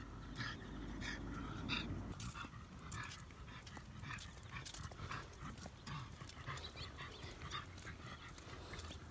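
French bulldog panting in a run of short, quick breaths, with a low rumble during the first two seconds.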